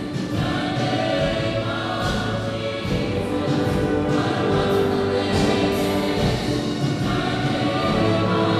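A choir singing gospel-style music with instrumental accompaniment, in long held chords.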